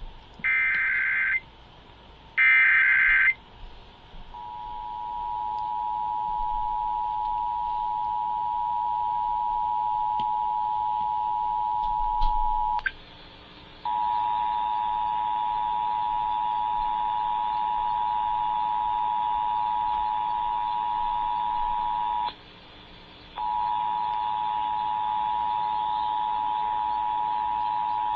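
Emergency Alert System test signal: the last two of the three screeching SAME header data bursts, each about a second long, then the steady two-tone EAS attention signal. The tone cuts off with a click about 13 s in and returns a second later sounding harsher. It drops out again for about a second near 22 s and then resumes.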